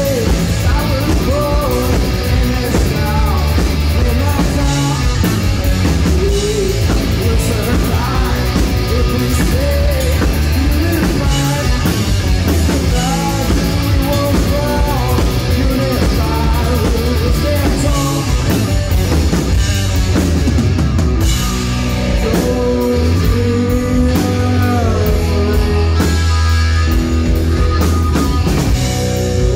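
A three-piece rock band playing live and loud: electric guitar, electric bass and drum kit.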